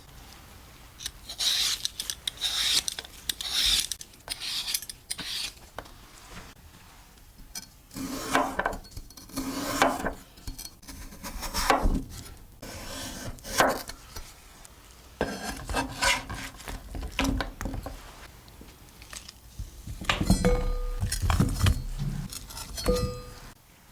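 Kitchen food prep with irregular rubbing and scraping strokes, produce or utensils worked against a board or dish. Near the end come a few dull knocks and a brief light ring, like a dish being set down.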